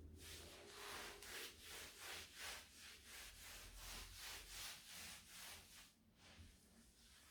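Faint scrubbing or wiping by hand, a steady run of about two to three strokes a second that dies away about six seconds in.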